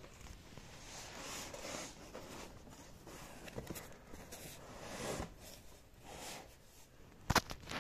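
Cardboard box being handled: soft scraping and rustling against the cardboard, with a sharp knock near the end.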